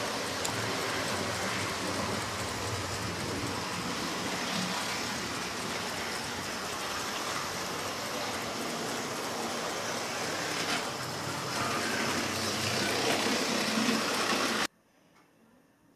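Model trains running on the layout's track: a steady, rushing rumble of wheels and motors, which cuts off suddenly near the end.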